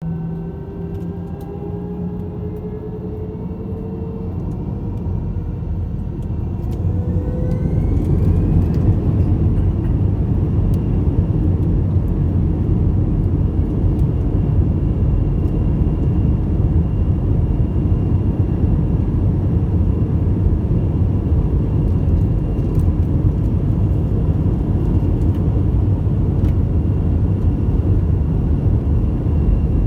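Airliner jet engines spooling up, with whining tones that rise in pitch over the first several seconds, then settling into a loud, steady low rumble, as during the takeoff run.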